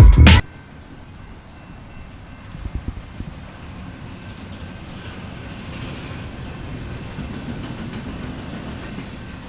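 Steady low road rumble inside a moving car's cabin, with a few faint knocks about two and a half seconds in.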